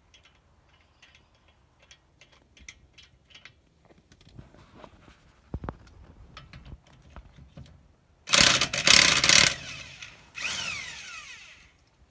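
Electric impact wrench hammering a wheel lug nut loose in a loud run of about a second, then running again briefly with its pitch falling as it spins down. Light clicks and knocks come before it.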